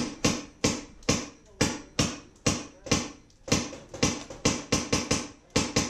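Magazine-fed paintball marker firing a steady string of about twenty sharp pops, three or four a second.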